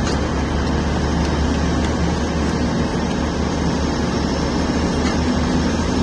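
Steady low rumble of distant heavy machinery and vehicles, with no distinct knocks or changes.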